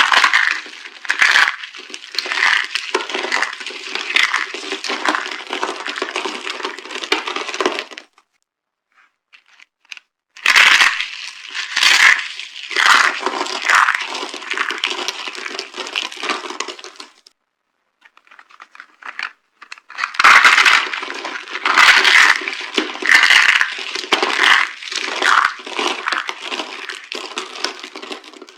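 Dry soap "boxes" being crushed and breaking apart in dense, crackling crunches. The crunching comes in three long bouts separated by short pauses.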